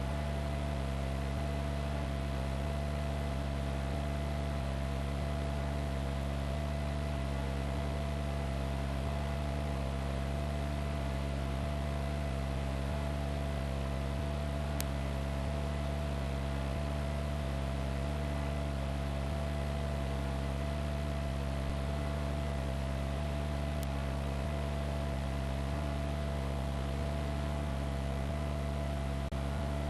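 Steady, unchanging drone of a helicopter's engine and rotors, with a thin steady whine above the low hum.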